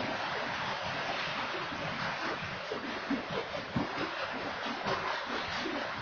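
Freight train cars rolling past: a steady rushing noise of steel wheels on the rails, with irregular low knocks and clunks.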